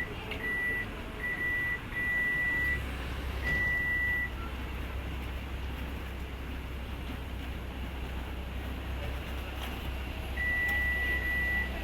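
Electronic beeping at one high pitch, in beeps of uneven length: four in the first four seconds, then one longer beep near the end. A low steady hum runs underneath from about three seconds in.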